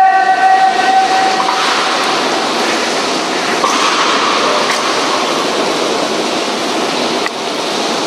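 Steady heavy rain falling, an even hiss with no rhythm, with a held tone fading out in the first second or two.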